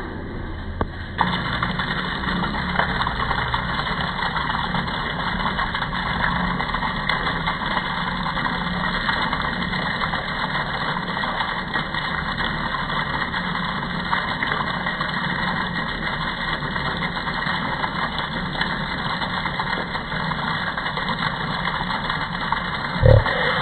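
Electric water pump motor switching on about a second in and running steadily with an even hum.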